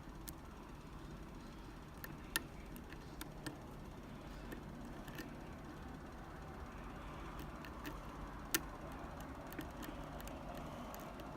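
Faint, scattered metallic clicks of a pick working the pin stack of a Medeco lock under tension, two of them sharper and louder. A low steady hum runs underneath.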